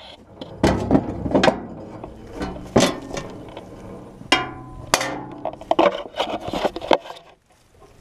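A series of sharp, irregular knocks and clunks, as of hard objects being handled or struck, over a low steady hum; the knocks stop shortly before the end.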